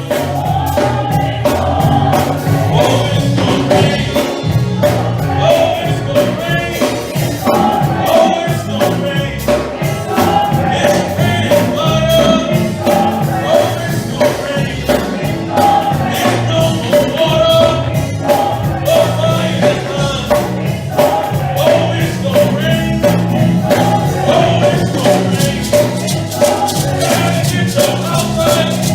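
Live gospel praise-and-worship music: voices singing over a band with bass, drums and tambourine keeping a steady beat.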